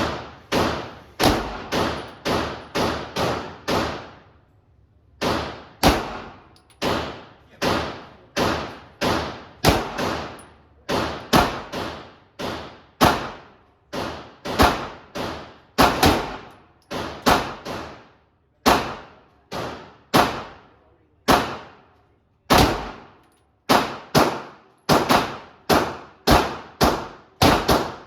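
9mm pistol shots fired one after another at a steady pace, roughly one to two a second, with a short pause about four seconds in; each sharp report is followed by a brief ringing decay.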